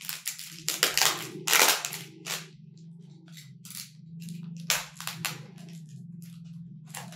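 Bubble wrap crackling and popping as a tightly wrapped item is unwrapped by hand: a run of sharp snaps, densest in the first two seconds and again around five seconds in. A steady low hum runs underneath.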